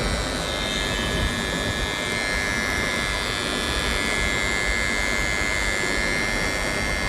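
Electrical contactor buzzing steadily with a harsh whine: the noise of a faulty contactor before its repair.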